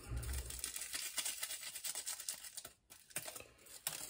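Fingers crumbling Oxo stock cubes out of their wrappers over the slow cooker. It makes a dry crinkling and crackling, a dense run of fine crackles with a short break about three seconds in.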